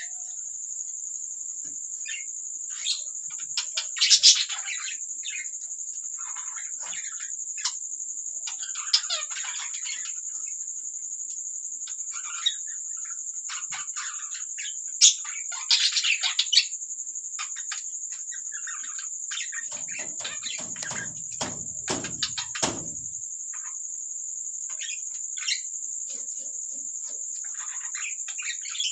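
Budgies chirping and chattering in short, scattered bursts over a steady high-pitched whine. A few low knocks come about two-thirds of the way through.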